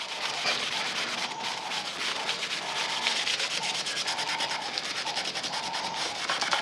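Cloth rag rubbing stain into a red oak board: a steady scratchy rubbing hiss with a faint back-and-forth rhythm of strokes.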